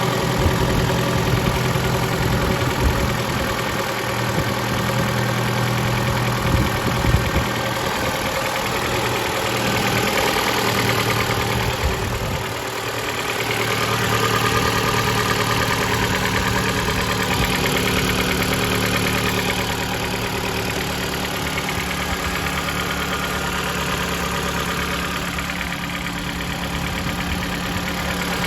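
Mitsubishi 4B11 2.0-litre four-cylinder engine running steadily at idle, with a dull knock from the timing-chain side. The owner suspects the valves; shops have variously blamed the valves, the timing chain or the cam phasers.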